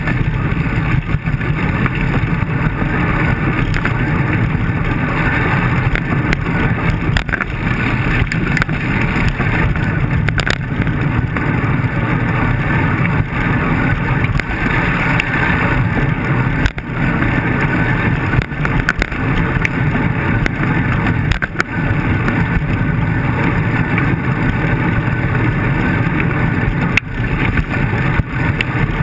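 Steady wind and road rumble picked up by an action camera on a road bike riding over rough asphalt, with a few sharp knocks from bumps in the road.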